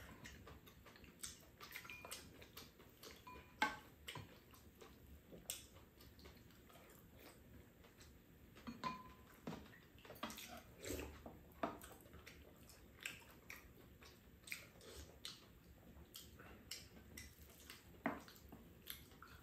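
Eating sounds: scattered light clicks and taps of wooden spoons and chopsticks against ceramic bowls and a metal pan, with the sharpest tap about three and a half seconds in.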